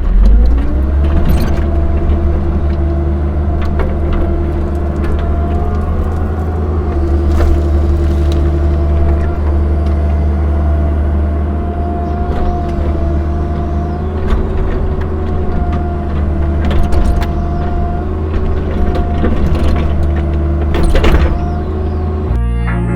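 CAT 305 mini excavator's diesel engine revving up at the start and then running steadily at high throttle while digging, with a steady hydraulic whine over the engine drone. A few sharp knocks and scrapes of the bucket in gravel come through now and then.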